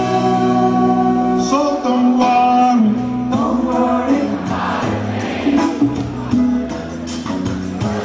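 Live band performance with many voices singing together in chorus over a full band.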